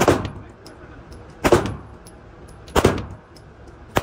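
Pistol fired in single shots at an indoor range: four sharp shots about a second and a half apart, each ringing briefly off the range walls.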